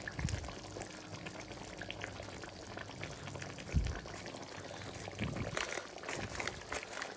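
Thick chicken curry bubbling in a pan, a steady run of soft pops and spits, with one dull knock about four seconds in.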